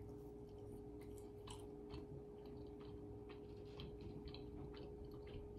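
Faint chewing of a soft, moist brownie: scattered small mouth clicks, over a steady low electrical hum.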